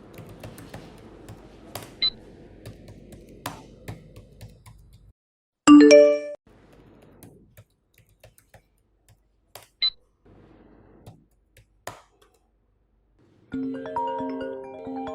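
Scattered keyboard and mouse clicks, with a loud short electronic chime about six seconds in. Near the end a phone ringtone starts: a repeating melody of short notes.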